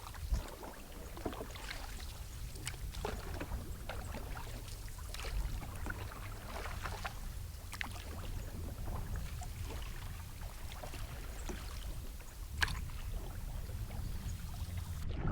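Canoe paddling: irregular splashes and drips of a paddle working the lake water, over a steady low rumble.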